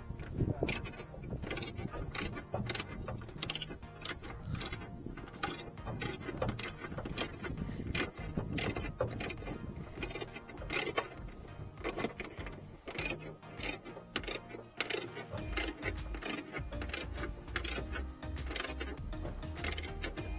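Ratchet socket wrench clicking through repeated short strokes, about two a second, as a nut on the wiper linkage is tightened.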